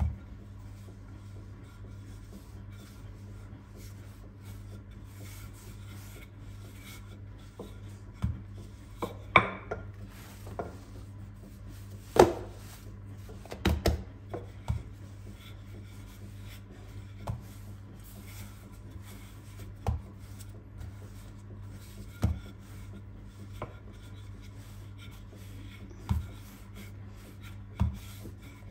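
Wooden rolling pin rolling out a sheet of soft dough on a granite countertop: soft rubbing, with scattered light knocks of the pin and hands on the counter, the loudest about nine and twelve seconds in, over a steady low hum.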